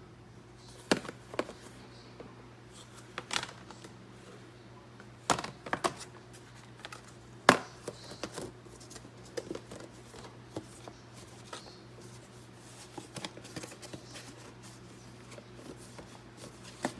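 Bentgo plastic meal-prep containers and lids being handled: irregular clicks and knocks of plastic, the loudest about seven and a half seconds in, over a steady low hum.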